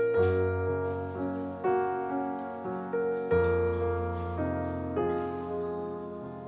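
Background piano music: single notes and chords struck one after another and left to ring and fade, over held bass notes.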